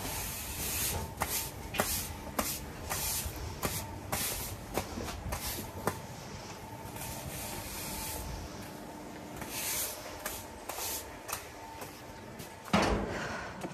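Broom sweeping spilled livestock feed across the floor in short, repeated strokes, about two a second, easing off for a moment midway and ending with one louder stroke near the end. A faint steady hum runs underneath.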